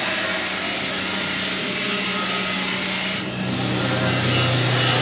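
Steady rasping noise with a low motor hum. About three seconds in it changes to motor-driven grinding wheels running with carbon-steel kukri blades pressed against them, grinding the steel.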